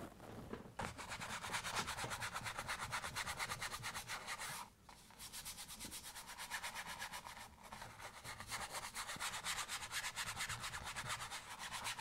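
A 2-inch paintbrush scrubbing oil paint onto canvas in quick back-and-forth strokes, several a second, with two brief pauses.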